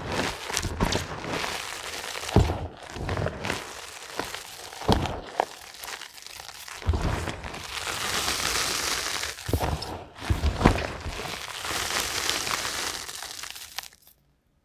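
Gym chalk blocks and powder crushed and crumbled between gloved fingers: soft crunching and powdery squeaks, with a few sharp cracks as firmer pieces snap. The sound cuts off suddenly near the end.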